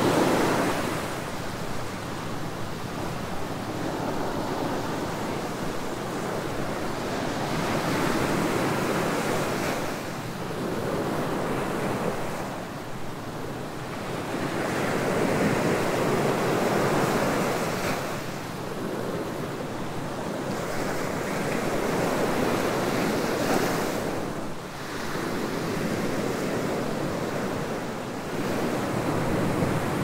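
Ocean surf breaking and washing up a sandy beach: a continuous rush of white water that swells and eases as each wave comes in.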